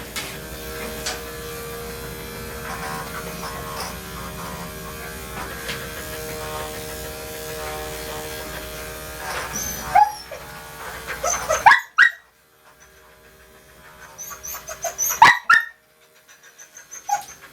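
Electric dog grooming clippers running steadily, then switched off suddenly about twelve seconds in. A Portuguese Water Dog barks sharply in short bursts over the last few seconds, set off as the clippers work through her matted coat.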